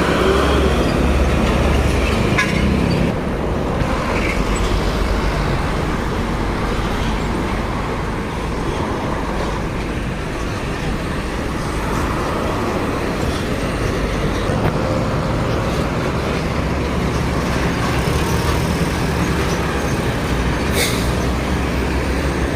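Steady highway traffic noise, with buses and trucks passing at speed on a toll road.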